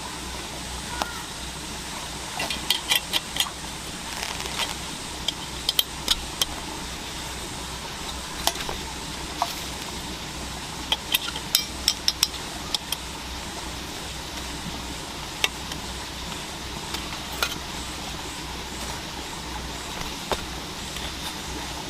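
Camp cookware and utensils clinking in scattered light knocks and clicks, some in short clusters, over a steady low background.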